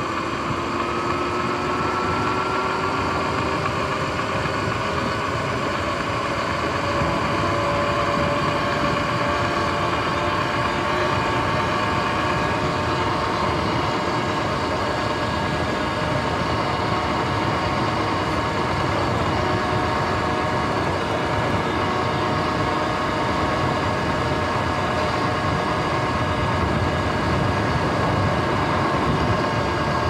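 Sur-Ron X electric dirt bike riding along a road: its motor whine rises in pitch over the first few seconds as the bike gathers speed, then holds steady over a constant rush of road and wind noise.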